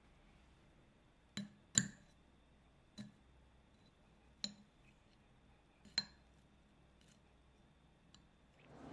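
A metal spoon tapping and cracking the hard caramelized sugar crust of a crème brûlée in a ceramic ramekin. There are five sharp taps spaced about a second or so apart, the second one the loudest, each with a short clinking ring.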